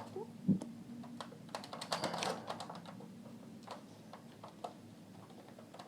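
Faint, scattered clicks and small taps of hands detaching the wires from a cassette deck's drive motor, with a few sharper clicks about half a second and two seconds in.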